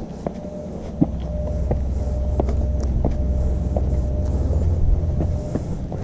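Footsteps on a rocky hiking trail, a sharp click roughly every half second to second, under a low rumble that swells toward the end and then eases off.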